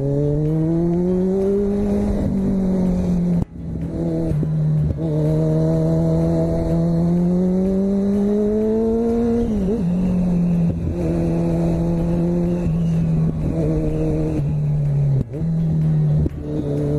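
Kawasaki Z1000 inline-four engine running under way, the revs climbing steadily as it pulls, then easing off and rising again. The sound cuts out sharply for a moment about three and a half seconds in and again about fifteen seconds in, each time coming back at lower revs, as the throttle is shut for a gear change.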